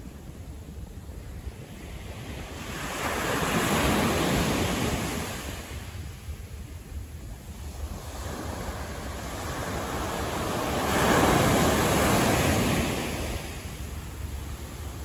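City street traffic noise, with two vehicles passing one after the other about eight seconds apart, each a rush of tyre and engine noise that swells and fades.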